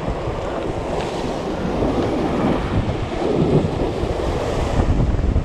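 Sea surf washing and breaking against shoreline rocks, mixed with wind buffeting the microphone: a loud, churning rush with the most weight in the low end.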